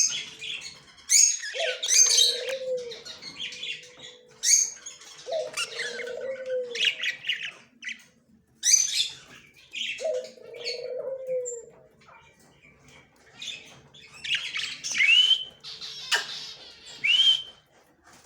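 Male budgerigar chattering with rapid high chirps and harsh squawks, with a low, falling cooing call of about a second repeating roughly every five seconds underneath.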